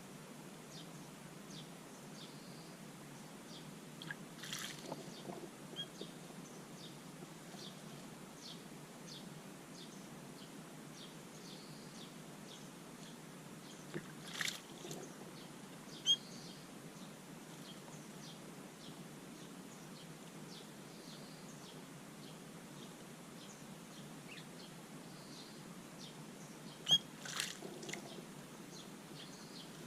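Garden outdoor ambience: a steady low hiss with faint high bird chirps scattered throughout, and a few brief sharp sounds about four, fourteen, sixteen and twenty-seven seconds in, the last the loudest.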